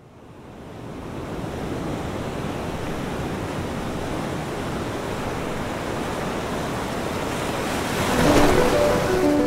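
Ocean surf on a sandy beach: a steady wash of waves fading in, growing louder about eight seconds in as a wave washes up the sand. Music with piano notes comes in near the end.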